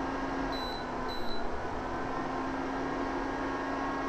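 Prestige PIC 3.1 V3 induction cooktop's cooling fan running with a steady hum while the cooktop is on. Two short high beeps from the touch control panel about half a second and one second in, as buttons are pressed.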